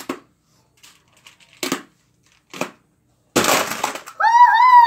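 Magnetic building tiles clicking into place a few times, then a loud clattering crash about three seconds in as the tile house is knocked down. A boy's long drawn-out exclamation follows near the end, rising and then falling in pitch.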